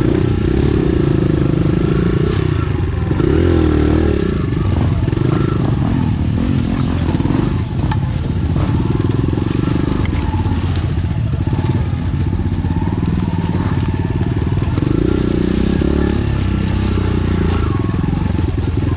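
Enduro dirt bike engine running on a trail, its revs rising and falling again and again as the rider throttles on and off.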